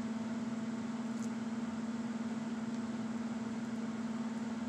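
A steady low hum, one unchanging tone over a light hiss, like a running appliance or electrical hum, with a faint tick about a second in.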